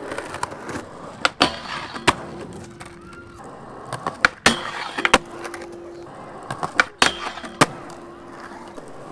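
Skateboard with titanium trucks rolling on pavement and grinding a metal flat bar: loud clacks of the tail popping and the wheels landing, and during each of about three grinds a steady metallic grinding tone.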